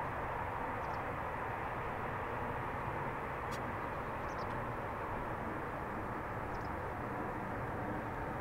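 Eurofighter Typhoon's twin EJ200 turbofans at taxi power: a steady jet rumble with a whine, with a few faint bird chirps.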